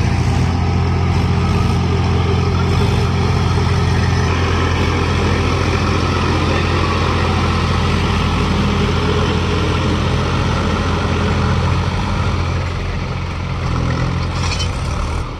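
Diesel tractor engines of a Swaraj and a Mahindra 575 DI running steadily under load as they pull a loaded trolley through wet sand. The sound eases slightly near the end.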